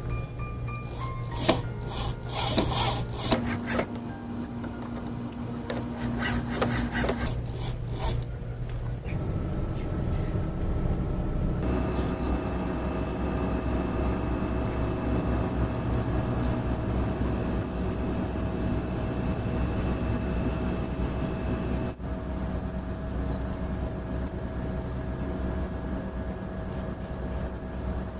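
Wood being worked by hand: rubbing and scraping on timber, with sharp knocks during the first eight seconds or so. Background music of long held chords plays underneath.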